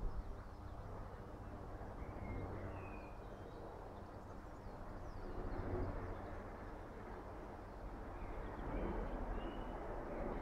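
Wind rumbling on the microphone with a steady outdoor rush, and a few short bird calls, small whistled notes that come and go.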